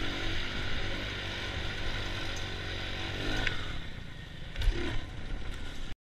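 Small dirt bike engine running steadily while riding over a rough trail, with a sharp thump about three-quarters of the way through. The sound cuts off abruptly just before the end.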